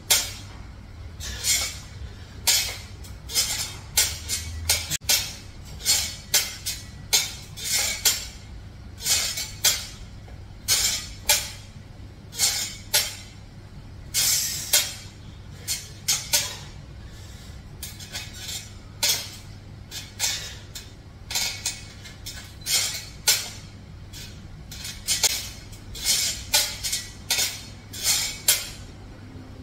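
Steel dip-belt chain and hanging weight plate clinking and rattling in short bursts, one cluster with each weighted pull-up rep, over a steady low hum.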